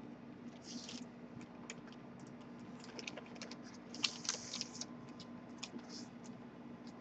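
Clear plastic sleeve crinkling and a cardboard LaserDisc jacket being handled, with scattered light clicks and rustles and a louder crinkle about four seconds in. A steady low hum runs underneath.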